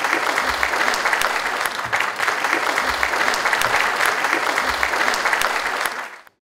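Audience applauding, many hands clapping steadily, until the sound cuts off abruptly about six seconds in.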